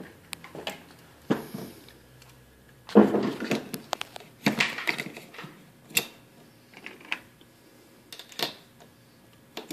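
Pistol cartridges being pressed one by one into a handgun magazine: a string of irregular small metallic clicks and clacks, with a couple of louder knocks about three and four and a half seconds in.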